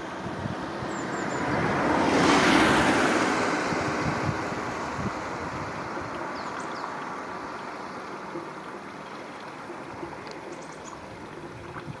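Steady outdoor rush of river water with wind on the microphone, and a broad whooshing swell that builds to a peak about two and a half seconds in, then slowly fades. A few faint high chirps come later.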